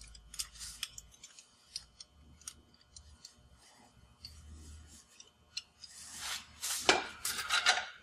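Steel chain and lever chain tensioner being handled by hand: small metal clicks and rubs, then a louder rattle of chain links near the end as the chain is pulled.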